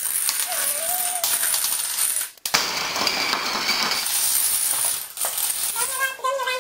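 A long chain of small plastic toy dominoes toppling one after another: a rapid, continuous clatter of many light clicks. The clatter breaks off briefly about two and a half seconds in.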